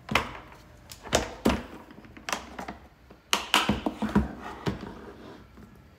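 Red plastic Milwaukee PackOut compact organizer being handled on a metal workbench: its clear plastic lid is shut and the case is set down and moved. About eight sharp plastic knocks and clacks come in the first five seconds.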